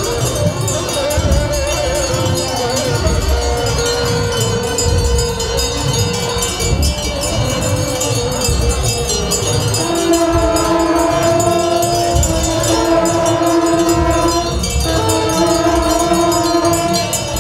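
Liturgical chanting by an Orthodox Tewahdo clergy procession, with metallic jingling and crowd noise. From about ten seconds in, the chant settles into long held notes, broken briefly near the fifteen-second mark.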